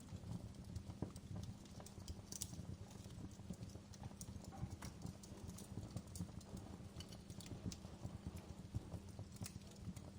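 Wood fire crackling in a fireplace: irregular sharp pops and snaps over a low steady rumble of the flames, with a couple of louder pops, one a little over two seconds in and one near the end.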